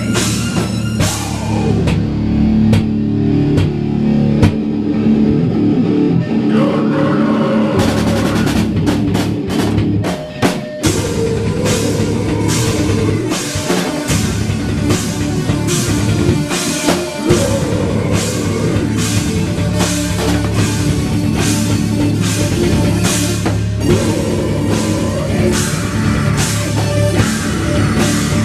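Live metal/post-hardcore band playing loud, with distorted guitars and a pounding drum kit; the music breaks off briefly twice, about ten and seventeen seconds in.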